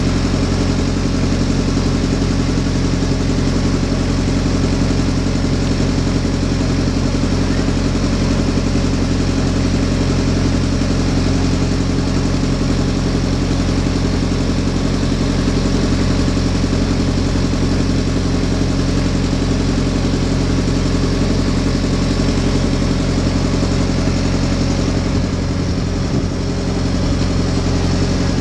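A slowboat's engine running steadily while the boat is under way on the river, loud and unchanging, with a slight dip near the end.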